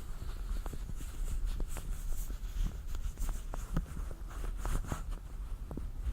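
Hands in latex gloves rubbing and handling close to the microphone, making many small irregular crackles and clicks.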